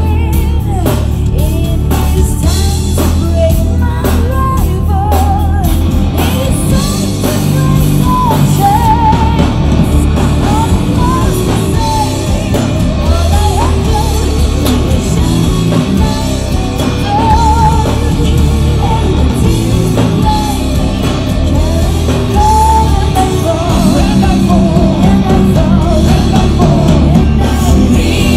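Symphonic power metal band playing live: a woman singing lead over distorted electric guitars, bass and drums. The drum hits stand out in the first few seconds before the full band fills in.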